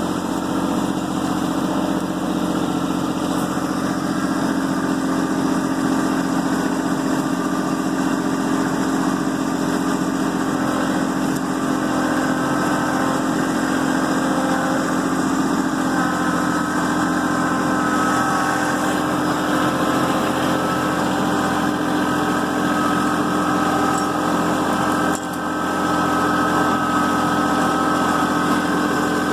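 Kubota B2650 compact tractor's three-cylinder diesel engine running steadily as the tractor travels with a loaded front bucket, with a short dip in level near the end.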